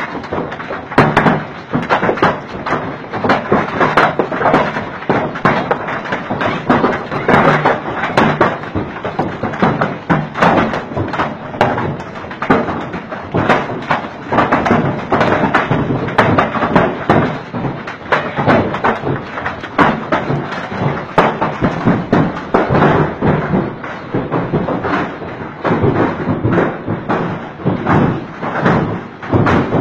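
Large hailstones pelting down in a loud, dense, irregular clatter of hard knocks and thuds with no letup.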